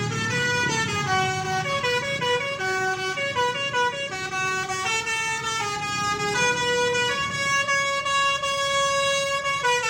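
Bus telolet horn of the Basuri type, a multi-note musical air horn, playing a tune of stepping notes, with some notes held longer in the second half, over the engine running underneath. It cuts off just before the end.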